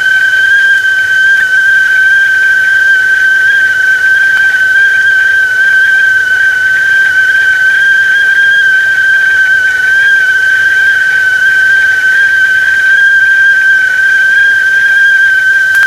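Whistling tea kettle sounding at the boil: one loud, steady high whistle that holds its pitch, with a fainter higher tone above it.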